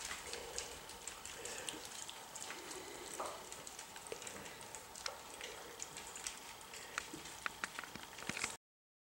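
Miniature schnauzer puppies eating soft food together from a stainless steel pan: a busy patter of small wet lapping and smacking sounds and light clicks against the metal. It cuts off suddenly near the end.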